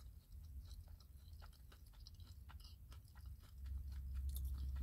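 Faint close-mouthed chewing of a mouthful of rice and beans, a scatter of small wet mouth clicks. A low rumble sits underneath and grows louder about three and a half seconds in.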